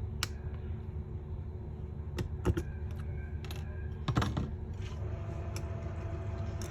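Small metal tools and phone parts clicking and tapping during smartphone disassembly: a handful of sharp, irregular clicks over a steady low hum.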